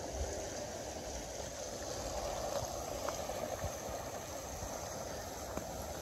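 Fast-flowing river current rushing steadily.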